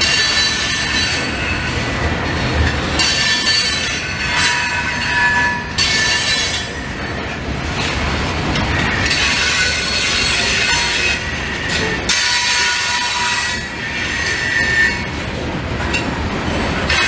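A freight train of covered hopper cars rolling past: a steady rumble of wheels on rail, with high-pitched wheel squeal that comes and goes several times.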